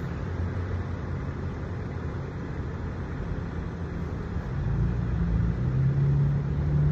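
A car engine running with a low, steady hum. About five seconds in, its pitch steps up and it gets louder.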